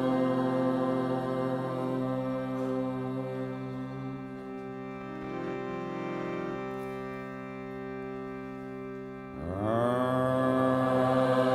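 Background music of a slow chanted Hindu mantra over a sustained drone. About nine seconds in, a new note slides up from low into a louder held tone.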